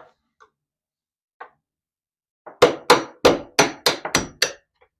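Hammer tapping a screwdriver against a door hinge pin to drive the pin up and out of the hinge: about seven sharp strikes with a slight metallic ring, roughly three a second, starting about halfway through.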